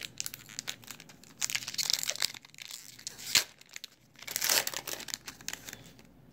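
A Pokémon TCG booster pack's foil wrapper being torn open and crinkled in irregular bursts of crackling, with a sharp click about three and a half seconds in.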